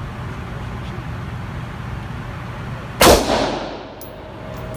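A single gunshot about three seconds in, loud and sharp with a short echoing tail, over a steady low rumble.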